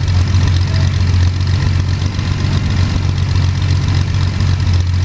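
Jabiru 3300 six-cylinder air-cooled aircraft engine idling steadily with the propeller turning, during its first run in a homebuilt Sonex.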